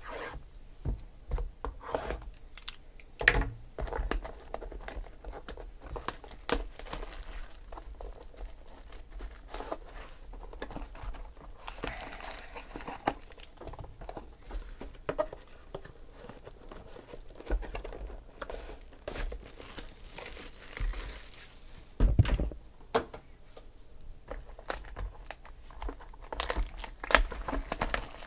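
Cellophane shrink-wrap on sealed trading-card boxes crinkling and tearing as it is slit with a knife and peeled off by hand, among scattered sharp clicks and knocks of cardboard boxes being handled.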